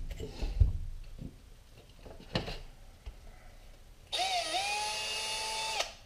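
A few sharp knocks of drill bits and tools being handled, then a cordless drill's motor spinning freely for nearly two seconds near the end: a whine that dips in pitch as it spins up, then holds steady and stops abruptly.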